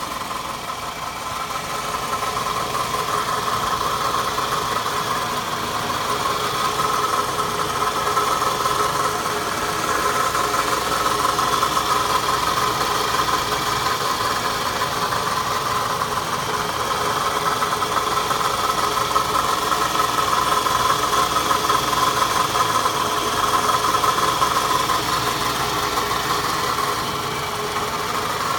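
Engine of a 2007 Toyota Camry (XV40) running steadily with an extraneous noise, which swells and eases every few seconds. The owner wonders whether it comes from the timing chain, its tensioner or the chain guide.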